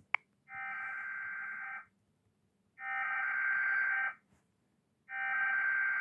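Emergency Alert System SAME header: after a brief chirp, three identical bursts of screeching digital data tones, each about a second and a half long with a second's pause between them, announcing an alert.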